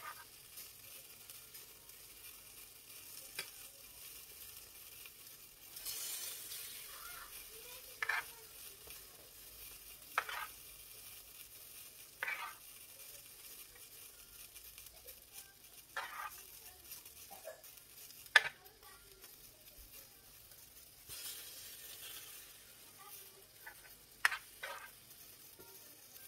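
A spoon scooping crumbly cooked chicken mince out of a non-stick frying pan and packing it into hollowed tomatoes: soft scraping with short taps and clicks of the spoon against the pan about every two seconds, the sharpest a little past the middle.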